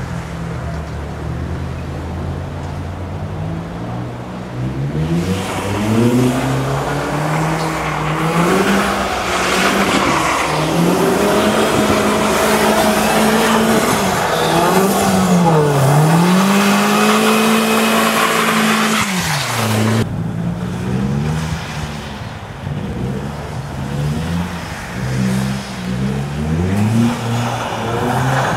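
Opel Astra 2.0 turbo four-cylinder engine revving hard as the car slides and spins its tyres on snow. Its pitch climbs and drops again and again, is held high and loudest under a rushing wheelspin noise through the middle, then rises and falls in several short bursts near the end.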